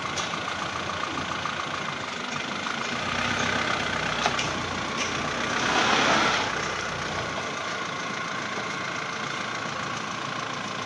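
A vehicle engine idling steadily, with a sharp click a little past four seconds in and a louder swell of noise about six seconds in.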